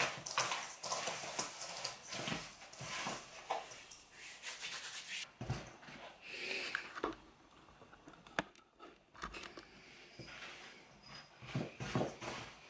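Wooden spoon mixing butter, sugar and flour into a cookie dough in a stainless steel mixing bowl: repeated rubbing, scraping strokes, with a quieter stretch and a few sharp clicks in the middle.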